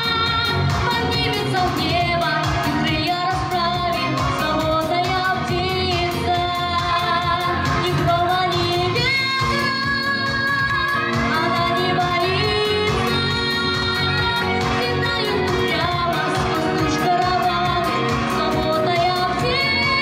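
A young girl singing a pop song into a handheld microphone over instrumental accompaniment with a steady beat.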